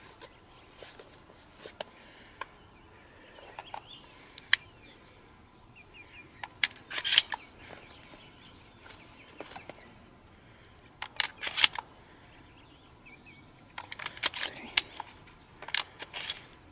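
Shotgun being loaded by hand: shotgun shells pushed into the gun with a series of sharp metallic clicks and clacks, coming in several quick clusters.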